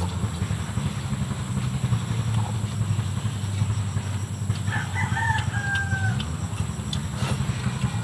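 A rooster crows once about five seconds in: a short crow ending in a long, slightly falling held note. A steady low rumble runs underneath, with faint clicks of eating close by.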